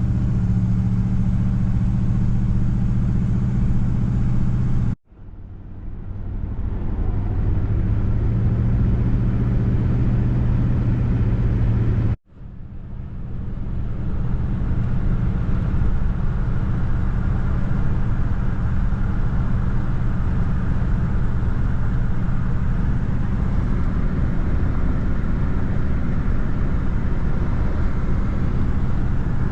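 1977 Ford LTD driving on the road: steady engine and road noise with a low hum. The sound cuts out abruptly twice, about five and twelve seconds in, and swells back up each time.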